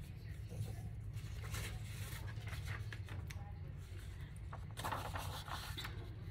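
A sheet of thin printed paper rustling as it is picked up and laid flat over a cardstock tag, loudest about five seconds in, over a steady low hum.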